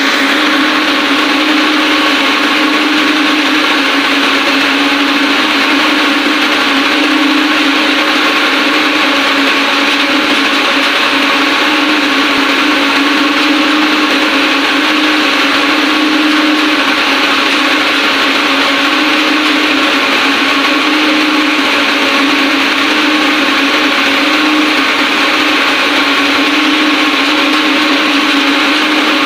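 Ring spinning frames running at speed: loud, steady machine noise with a constant hum.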